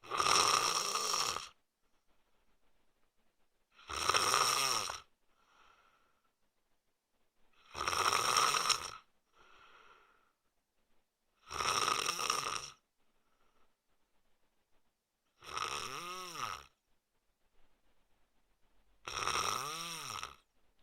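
A sleeping man snoring: six loud snores about every four seconds, each a little over a second long, with faint breaths between them. Some of the later snores carry a pitched rattle that rises and falls within the snore.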